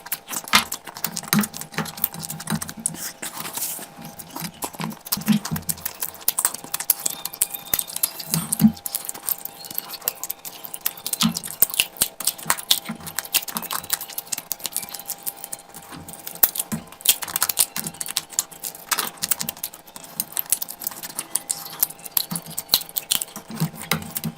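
Close-miked eating sounds: rapid, irregular wet clicks and smacks of a person chewing and eating curry and rice.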